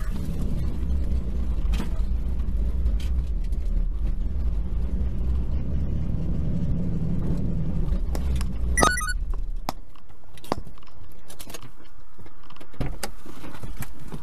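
Inside a car: a steady low vehicle rumble that fades about ten seconds in, with scattered knocks and a loud metallic jangle about nine seconds in.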